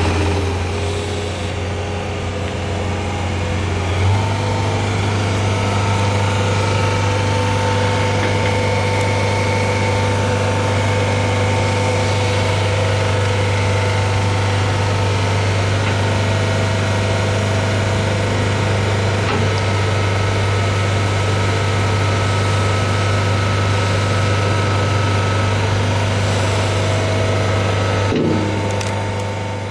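Diesel engine of a John Deere CT322 tracked skid steer running steadily, its low hum getting stronger about four seconds in as the engine speed rises.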